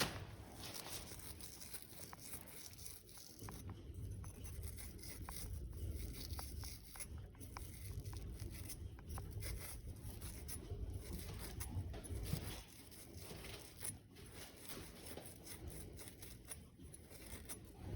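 Faint hand-work noise: light scratching and scattered small clicks, over a low rumble.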